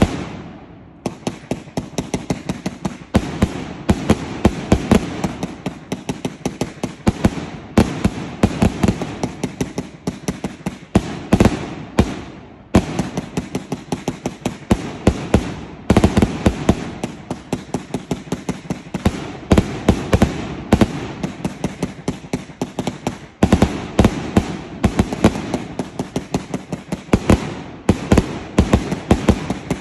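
A La Bruja 200-shot salute firework cake firing in rapid succession: a long string of sharp bangs, several a second, broken by a few brief pauses.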